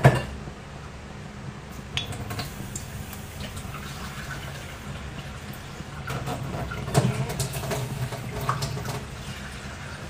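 Water running into a pot to cook quinoa, filling it, with a sharp knock of the pot at the start and a few lighter clunks later.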